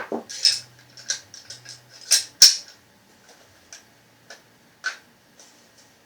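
Sharp, irregular clicks and clinks of small metal and plastic parts of an airsoft gas blowback rifle's bolt being handled, a quick run of them in the first couple of seconds, the loudest about two and a half seconds in, then a few scattered ones.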